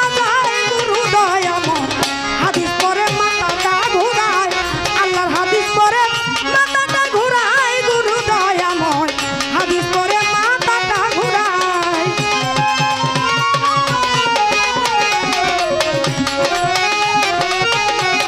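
Bengali baul folk music: hand drums playing a fast, steady beat under a continuous, wavering and ornamented melody line.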